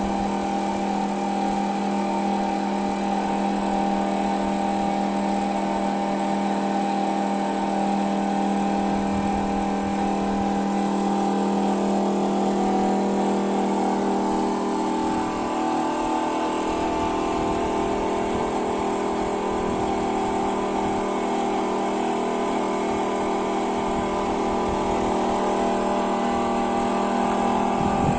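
Excavator engine running steadily with a constant hum, its tone shifting slightly about halfway through.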